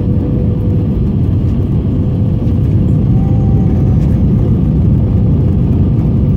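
Steady cabin noise inside an Airbus A320 on approach: a dense, even drone of engines and air rushing past the airframe, with a faint steady tone running through it.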